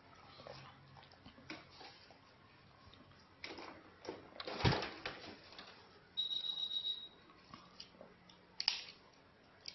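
Handling noises from fastening a plastic booster feeding seat's strap and buckle around a tubular metal chair: scattered clicks and rubbing, with one louder thump a little before the middle. About six seconds in there is a short high-pitched tone, and near the end a sharp click.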